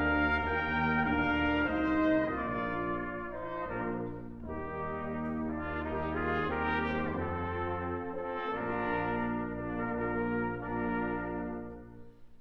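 Brass quintet of two trumpets, French horn, trombone and tuba playing chamber music: sustained chords over a low tuba bass line, with a short break in the sound near the end.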